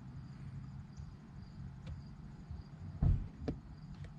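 Insects chirping in the background in a steady, evenly repeating high pattern over a low rumble, with a few light clicks and one louder low thump about three seconds in.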